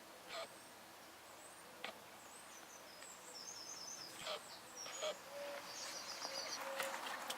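Short squeaks from the camera itself, about four of them at irregular intervals, not from the rabbits. Two quick runs of high chirping birdsong come in the middle and near the end.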